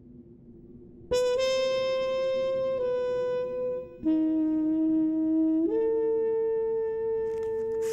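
A solo trumpet plays a slow line of long held notes, coming in about a second in; it drops to a lower note in the middle, then rises to a higher note that is held to the end. A few short crackles sound near the end.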